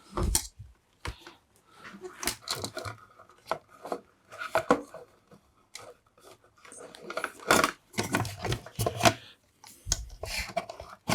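Irregular clicks, taps and rustles of hands working a mains plug and multimeter test probes, with some faint muttering.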